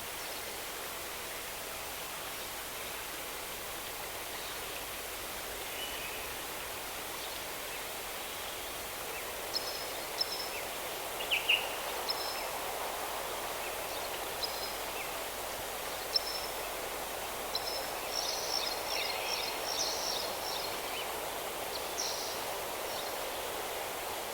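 Forest ambience: a steady rushing background with small birds chirping. Short high chirps come in about ten seconds in and grow more frequent near the end.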